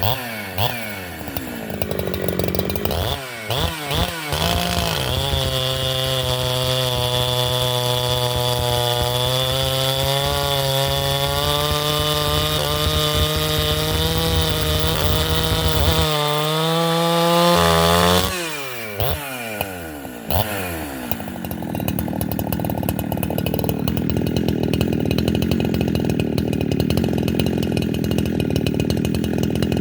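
Holzfforma G372 two-stroke chainsaw with a 28-inch bar and a re-filed chain. It is blipped a couple of times, then holds a steady, pulled-down engine note while bucking through green red oak. It revs up sharply as the bar clears the wood about 17 seconds in, drops back down, and runs on with a rougher, noisier sound.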